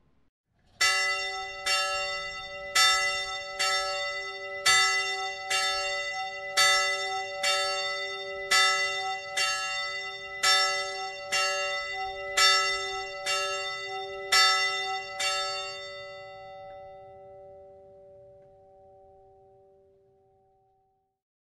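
A single church bell struck about once a second, some fifteen times, then left to ring out and fade away.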